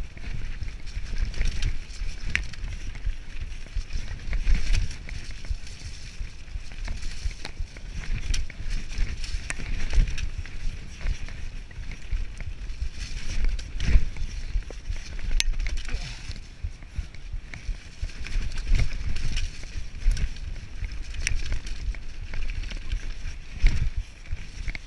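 Mountain bike riding fast down a rough dirt forest trail: tyres rumbling over the ground and the bike rattling, with frequent knocks as it hits roots and stones.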